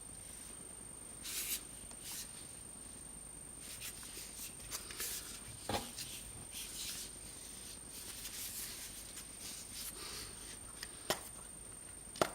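Faint rubbing, rustling and a few sharp light clicks of hands handling a portable Bluetooth speaker, over a faint steady high whine.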